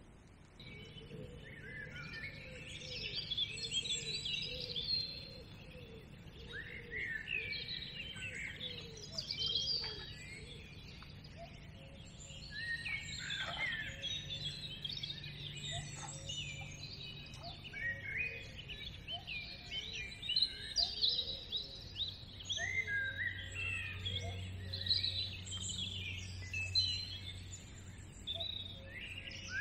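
Dawn chorus: many songbirds singing at once in overlapping warbling phrases and chirps, with a faint low steady hum underneath.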